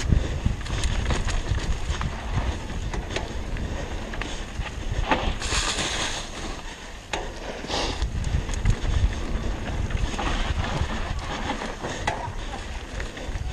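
Wind buffeting the microphone of a mountain bike riding down a leaf-covered dirt trail, with the tyres rolling and the bike clicking and rattling over bumps. A louder hissing rush comes about halfway through, and a shorter one a couple of seconds later.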